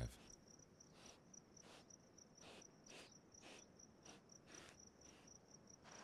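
Faint insect chirping, a high-pitched chirp repeated steadily about four times a second, with softer short rustling strokes now and then.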